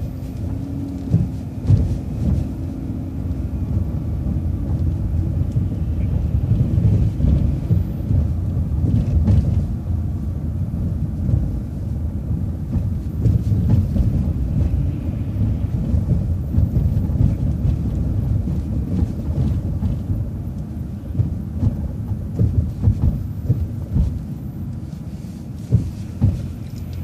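A vehicle driving through city streets: a steady low rumble of road and engine noise with irregular thumps and bumps.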